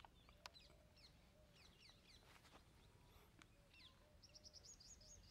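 Faint birds chirping in the background, with a quick run of short high chirps near the end, and a few soft clicks.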